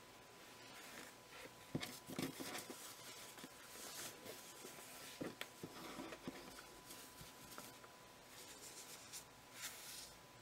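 Cotton quilting fabric rustling and brushing faintly as a hand flips a fat quarter over and smooths the next one flat, with a few soft taps mixed in.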